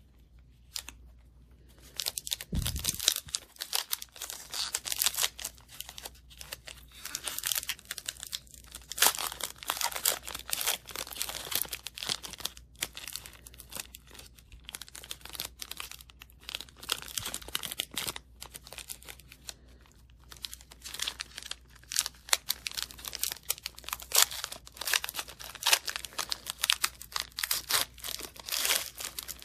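Foil trading-card pack wrapper being torn open and crinkled by hand, an irregular run of crackles and crinkles that starts about two seconds in.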